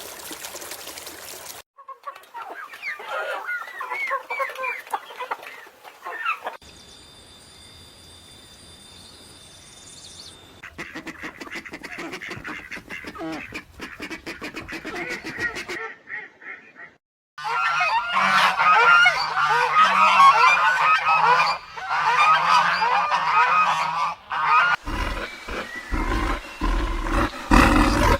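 A flock of fowl calling over one another in dense, overlapping honks and cries, in several separately cut stretches; the loudest and densest stretch comes in the last third.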